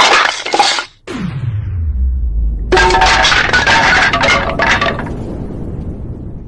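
Hanna-Barbera-style cartoon sound effects: a sharp burst, a low sound falling in pitch, then a long crash of breaking glass and clinking debris that slowly dies away.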